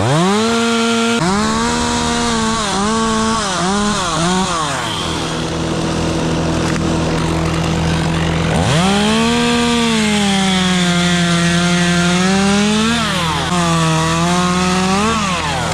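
Chainsaw revving and cutting into dead hemlock wood: its pitch rises sharply, then sags and recovers again and again as the chain bites and loads up. It revs up again about nine seconds in for a longer cut and drops off near the end. A second engine hums steadily underneath.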